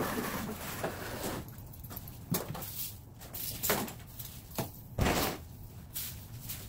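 Broom swept across a bare concrete floor in short, scratchy strokes, about one a second, with a louder scrape at the start.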